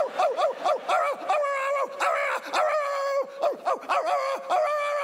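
A man imitating a frustrated dog with his voice: a rapid string of short, high-pitched whining yelps, each falling off at the end.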